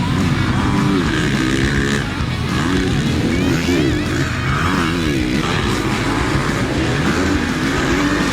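Several motocross bikes racing, their engines overlapping and repeatedly rising and falling in pitch as they rev and shift.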